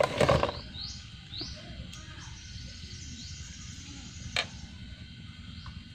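A bird calling with a series of short rising chirps over a steady low background rumble, with a brief loud noisy burst at the start and a single sharp click a little over four seconds in.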